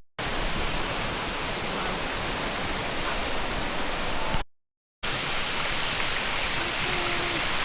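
Waterfall rushing steadily, an even hiss-like noise. It cuts out for about half a second at an edit a little past the middle, then carries on the same.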